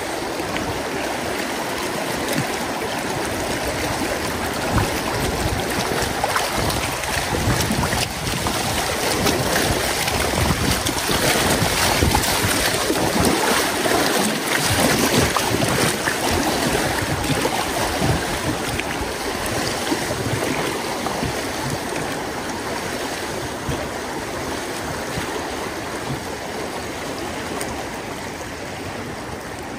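River water rushing and splashing, a steady noise that swells in the middle and eases off toward the end.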